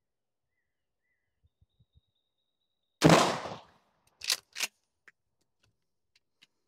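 A Mossberg 590 Cruiser 12-gauge pump shotgun fires one Aguila mini slug about three seconds in, the report ringing off over about half a second. About a second later come two sharp clacks close together as the pump is worked back and forward to chamber the next shell, then a few faint clicks.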